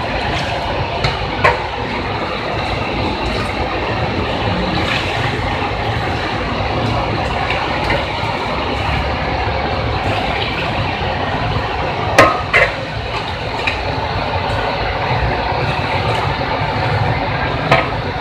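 Raw cow's milk being scooped with a plastic dipper and poured into a basin, splashing, over a steady rushing background noise. A few sharp knocks break in, two close together about midway and one near the end.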